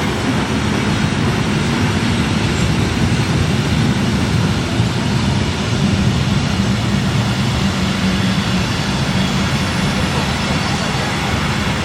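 A vehicle running past or along with a steady, even rumble and a low hum, with no clear rhythm.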